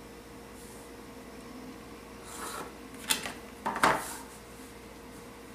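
A plastic pattern-making ruler being slid and repositioned over paper on a drafting table. A soft scrape comes about two and a half seconds in, then two sharp taps about three and four seconds in.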